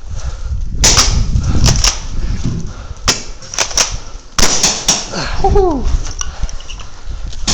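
Airsoft guns firing: about a dozen sharp, snappy cracks, singly and in quick pairs, over the first five seconds, with a low rumble of movement underneath.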